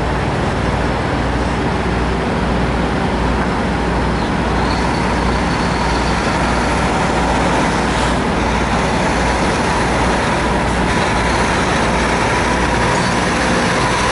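Semi-truck diesel engines running steadily at low speed and idle, as a car-hauler tractor-trailer crawls up and passes close; the engine sound grows slightly louder toward the end.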